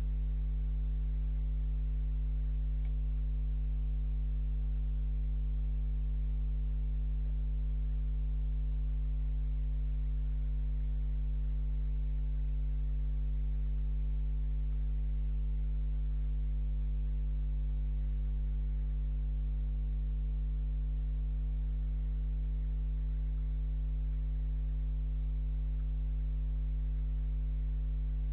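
Steady low electrical hum with buzzing overtones, unchanging throughout: mains hum picked up in a security camera's audio. No sound from the fox stands out above it.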